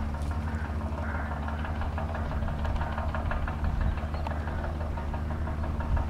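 New Holland 6050 tractor's diesel engine running steadily under load while pulling a four-furrow plough through the soil, with faint rapid clicking through the middle.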